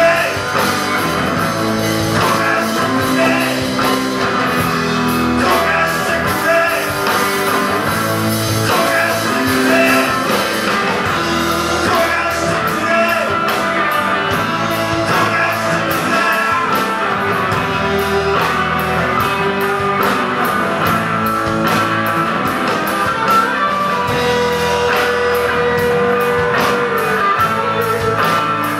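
Live rock band playing: electric guitars, bass and drums, with a man singing. A long held guitar or vocal note sounds near the end.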